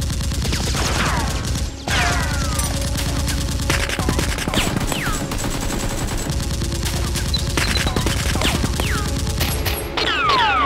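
Sustained rapid automatic gunfire, an unbroken stream of shots with a short gap just before two seconds in. Falling whistling sweeps like bullets whizzing past are scattered through it.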